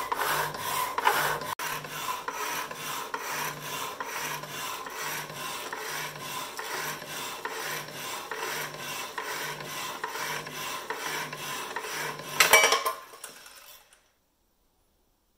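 Homemade motor-driven power hacksaw cutting through a metal bar, the blade rasping back and forth at a little over one stroke a second. About twelve and a half seconds in there is a loud clatter as the cut goes through, then the saw's automatic switch-off stops the motor and the sound winds down to silence.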